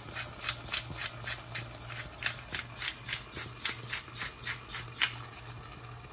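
Hand-twisted pepper mill grinding peppercorns, a quick run of crisp crunching clicks at about four a second that stops about five seconds in.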